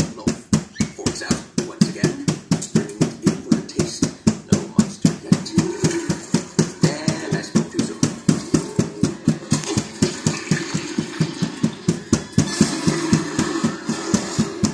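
Rapid, even tapping on an LCD TV, about five taps a second, done to clear lines and square blocks from the picture of a replaced screen panel.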